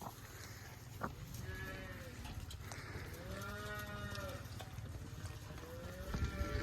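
Cattle mooing: three drawn-out calls, each rising and then falling in pitch, over a steady low rumble.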